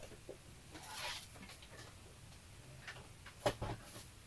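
Faint handling sounds on a table: a few soft clicks and taps, the clearest about three and a half seconds in.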